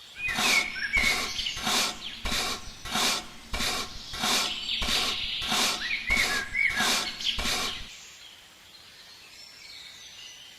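Rhythmic scraping strokes, about two a second, that stop about eight seconds in, with birds chirping.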